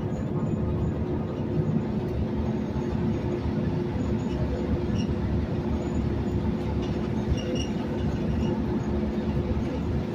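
New Flyer XN60 articulated bus under way, heard from inside the cabin: its Cummins Westport ISL G natural-gas engine running steadily with a low road and tyre rumble and a steady hum.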